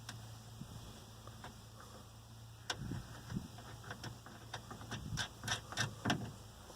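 Irregular sharp clicks and light knocks from hand work on a sliding-door handle mechanism with a wrench: a few single clicks at first, then a quicker run of them from about a third of the way in until near the end, over a faint steady hum.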